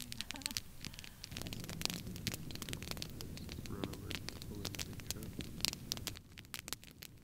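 Wood campfire crackling, with many sharp pops and snaps. A low, steady rush underneath drops away about six seconds in.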